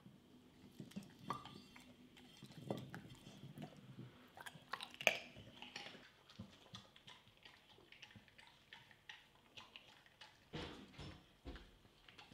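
A dog at a plate of raw carrot: faint chewing, with small clicks and scrapes of the plate on the glass table, mostly in the first half. A couple of dull thumps come near the end.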